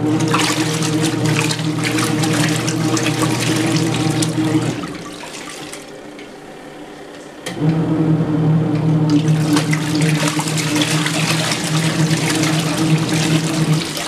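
Kuppet twin-tub portable washer's wash tub agitating a load of rug and towels: the agitator motor hums under loud churning, splashing water. The motor stops for about three seconds partway through, leaving only quieter sloshing, then starts up again.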